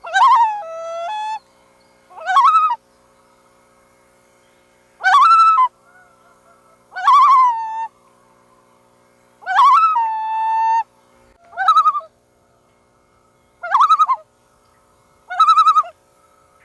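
Loons calling again and again, about eight loud calls a second or two apart: some rise then fall and hold a lower note, and the last three, near the end, quaver rapidly. A faint steady hum lies underneath.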